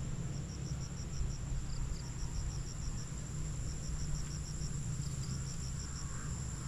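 Insects chirping in vegetation: trains of short, evenly spaced high chirps, several in a row with brief gaps, over a steady thin high drone. A low steady rumble runs underneath.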